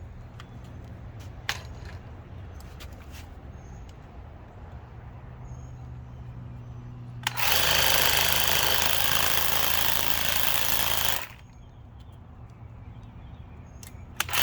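Electric Black & Decker string trimmer fitted with zip ties in place of string line, run against grass: a loud whirring burst of about four seconds that starts and stops abruptly midway, and starts again just before the end. Between bursts there is a lower steady hum and a few clicks.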